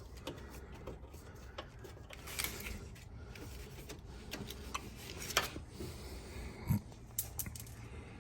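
Scattered small clicks, taps and handling noises from hands working a plastic licence-plate light housing and its wiring under a truck's rear bumper, with a few sharper knocks about two and a half, five and a half, and near seven seconds in.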